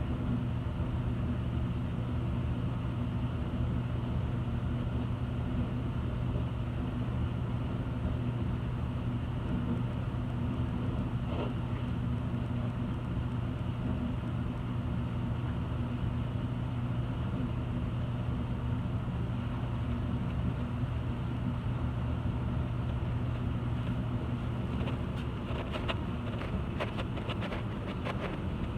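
A steady low machine hum at a constant pitch, easing off about 24 seconds in, followed by a few light clicks.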